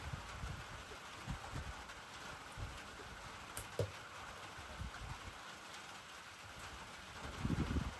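Steady rain falling, a continuous hiss, with scattered low thumps and a louder low rumble near the end.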